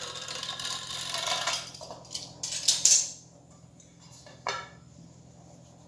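Pastry trimmer wheel scraping as it cuts the excess dough from the edge of a filled half-moon pastry, with a few sharp clicks against the work surface about two to three seconds in. A single light knock comes about four and a half seconds in.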